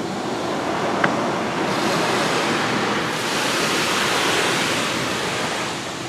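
Belenger Kondor automatic car wash spraying water jets over the car, heard from inside the car: a steady rushing hiss that grows stronger about two seconds in and again about three seconds in, with a brief tick about a second in.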